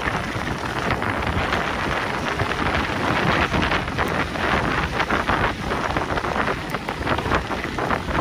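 Mountain bike riding down a dirt trail: tyres crunching over loose dirt and gravel, with many small rattles over bumps, and wind rumbling on the microphone.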